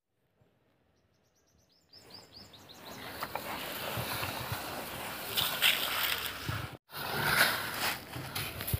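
Plastic toy dump truck and tractor dragged by a string over loose gravel: uneven crunching and scraping of wheels and stones. It starts after about two seconds of near silence and breaks off for an instant near seven seconds.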